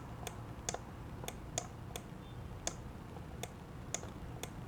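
Light computer mouse clicks, about ten single clicks at an uneven pace, roughly two a second, over a faint low room hum.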